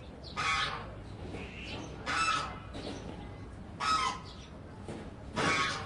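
A large bird giving short, harsh, raspy calls, four in a row spaced about a second and a half to two seconds apart; the last is the loudest.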